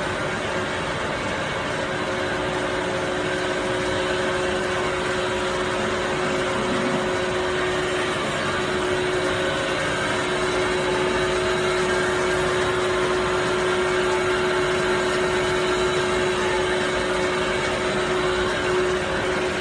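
Hard candy die-forming machine running: a steady mechanical hum and whir with a constant drone, unchanging throughout.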